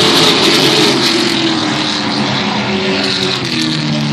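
Race truck engines running at speed around an oval track. The pitch falls over the first couple of seconds as a truck goes past, then holds steady.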